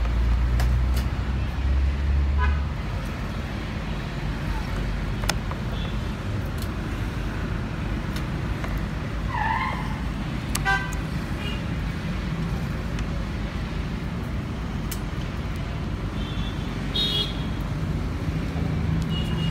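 Steady low rumble of a motor vehicle. A few short high chirps come about halfway through and again near the end.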